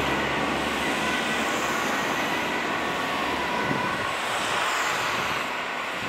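Road traffic driving past: a steady rush of car and van engines and tyres, with a low engine rumble fading in the first second and faint steady high tones in the background.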